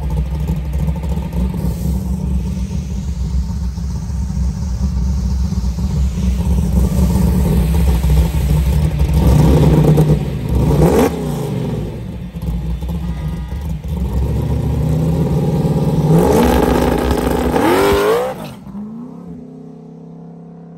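Small-tire first-generation Chevrolet Camaro drag car's engine running on the line, revved briefly twice, then launching and rising steadily in pitch as it accelerates hard away, dropping off sharply a couple of seconds before the end.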